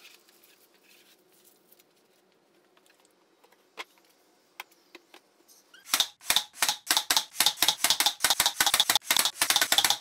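Cordless brad nailer firing brads into a plywood cabinet top: a fast string of sharp shots, about six a second, starting about six seconds in and cutting off suddenly.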